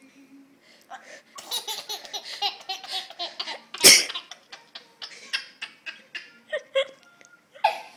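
Baby laughing in runs of quick, pulsed giggles at a sneeze, with one loud, sudden burst of noise about four seconds in.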